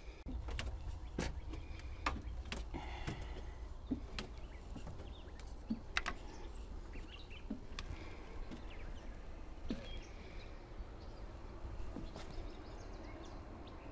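Quiet outdoor ambience with scattered light clicks and knocks, a low rumble, and one short high bird chirp about seven and a half seconds in.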